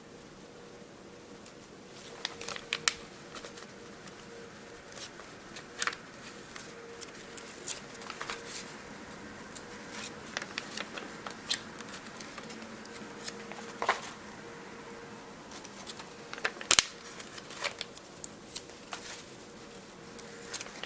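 Planner stickers being peeled off their sheet and pressed onto paper pages: irregular small clicks, taps and rustles, with a faint steady hum underneath.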